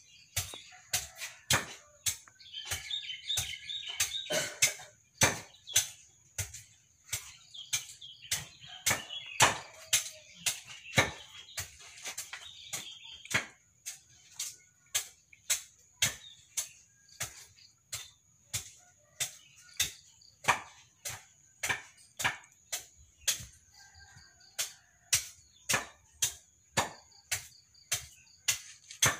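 Sharp knocks repeating about twice a second, with a steady high-pitched insect drone behind them and birds chirping for a few seconds near the start.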